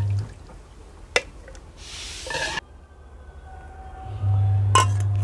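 A metal ladle and spoon clinking as cooked dal is served from the pot into a bowl, with one click about a second in and a short scraping rush about two seconds in. Near the end a low steady hum comes in along with a few light clinks of a spoon on a small steel bowl.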